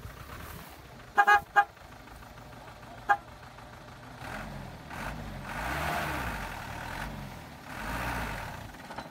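A vehicle horn gives two short toots, then a third about two seconds later. Then the stuck truck's engine revs up and eases off twice as it strains to drive out under load.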